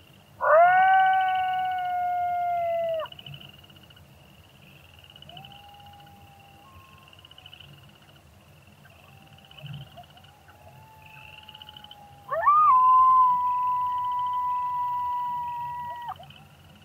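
Coyote howls: one long howl that rises and then holds steady, fainter howls in the middle, and a second long howl near the end. A steady repeated chirping of crickets runs underneath.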